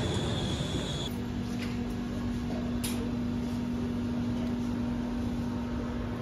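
Steady hum and hiss of café machinery and refrigerated counters. About a second in, a faint high tone stops and a steady low hum takes over, with one sharp click about three seconds in.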